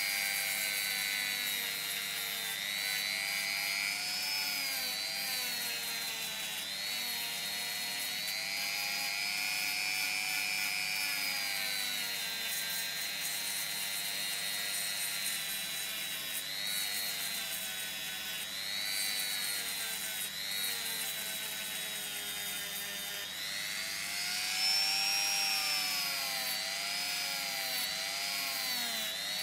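Handheld rotary tool with a small sanding drum running continuously as it sands a wooden saw handle: a high whine that drifts up and down in pitch as it is pressed into the wood and eased off, rising briefly near the end.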